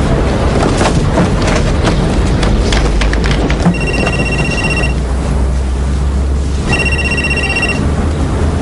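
A telephone rings twice, each ring about a second long on one steady high pitch, over a steady low rumble.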